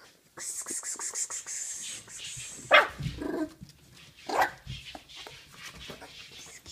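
Miniature Bull Terrier puppies about a month old yapping: a loud yelp just under three seconds in and another about four and a half seconds in, with scuffling and rustling in the first two seconds.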